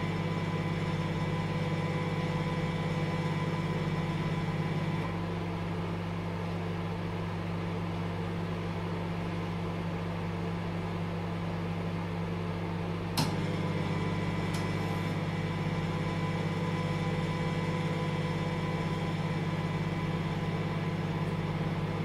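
Microwave oven running with a steady hum. About five seconds in the hum turns thinner and slightly quieter, and about 13 seconds in a sharp click brings the fuller hum back.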